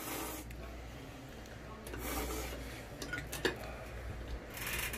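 A man slurping spicy ramen noodles: soft, rasping sucking sounds in a few short spells, with a couple of light clicks of tableware about three seconds in.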